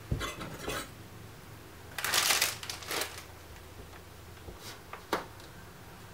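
Kitchen handling sounds: lemons and a knife knocking against a plastic cutting board, with a short noisy rustle or scrape about two seconds in and a sharp knock about five seconds in.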